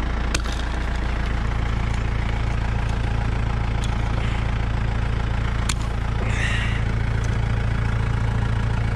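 Kubota M6040 tractor's diesel engine idling steadily, with three sharp metal clicks as fencing pliers work staples and barbed wire loose from a wooden fence post.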